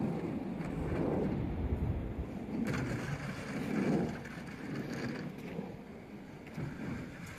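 Vehicle pushing heavy snow with a front-hitch snow plow: a rough, uneven rumble, louder through the first four seconds and easing after.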